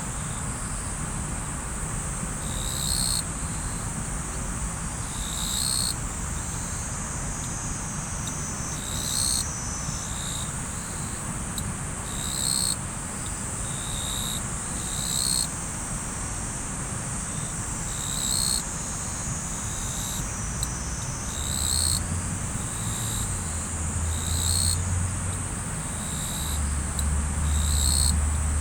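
Insects trilling steadily at a high pitch, with a short chirp repeating about every three seconds, over the even rush of river water. A low steady hum comes in about three-quarters of the way through.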